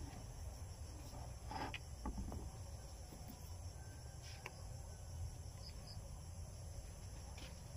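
Steady high chirring of insects over a low rumble, with a few faint clicks as a paper sticker label is peeled and pressed onto a plastic bottle.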